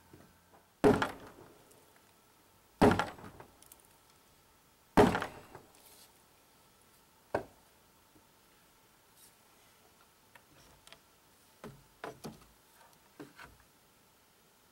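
Heavy blows on wood: three loud thunks about two seconds apart, then a lighter one and a few small knocks near the end.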